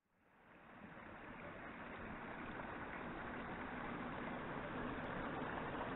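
Water from a small waterfall splashing steadily into a pool, fading in over the first second.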